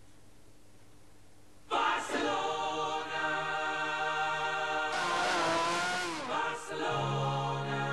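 Sustained choral music swells in about two seconds in. Around five seconds in, a Formula 1 car passes at speed over the music, its engine note falling as it goes by.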